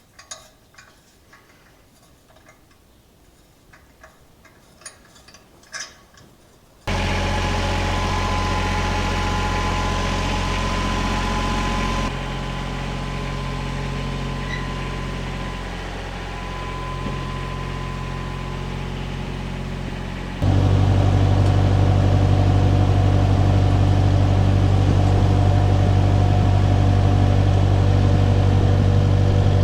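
A few light clicks and knocks of hand work for the first several seconds. Then a steadily idling engine comes in abruptly about seven seconds in, its level stepping down around twelve seconds and up again around twenty.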